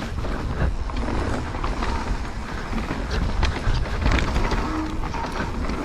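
Mountain bike riding down a dirt trail: a steady low rumble of tyres and wind with frequent sharp rattles and knocks as the bike runs over rough ground.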